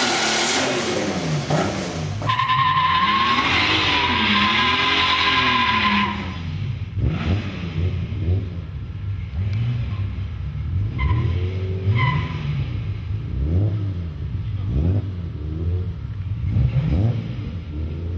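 A drift car's engine revving up and down during a burnout, with a loud tyre screech from about two to six seconds in. After that the engine is blipped over and over, with a couple of short tyre chirps.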